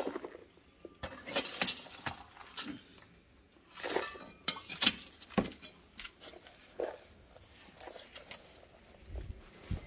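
A hand tool digging, chopping and scraping through dry, lumpy soil in a styrofoam box, an irregular series of crunches, scrapes and knocks. Near the end, gloved hands rake and rub through the soil.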